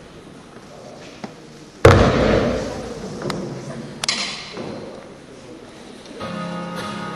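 A loud thump about two seconds in, then a sharper, hissy burst about four seconds in, and a few small clicks. Background music with steady tones comes in near the end.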